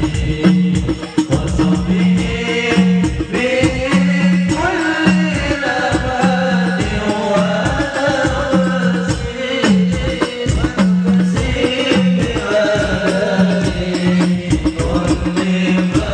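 Sholawat singing with hadroh frame-drum accompaniment, played loud through a PA sound system, with a steady low drum beat repeating under dense hand-drum strokes.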